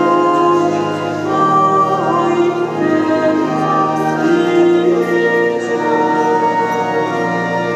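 Pipe organ playing long held chords while a voice sings over it.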